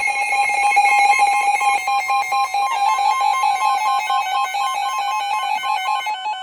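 Emergency Alert System alert tone for a severe thunderstorm warning: a loud, buzzy electronic tone that after about two and a half seconds turns into two pitches alternating in quick succession.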